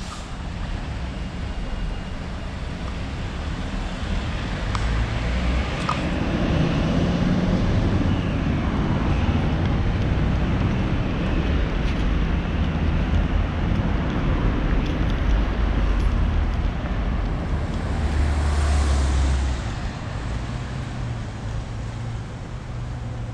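Street traffic: cars passing on a two-lane road over a steady low rumble, with one louder pass swelling and then dropping away about three-quarters of the way through.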